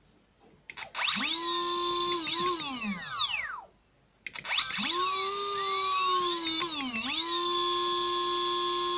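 Emax PM1806 2300Kv brushless motor running unloaded with no propeller, giving a high, tonal electric whine. It spins up about a second in, winds down to a stop at about three and a half seconds, then spins up again. Near seven seconds its speed dips briefly, and it then holds steady.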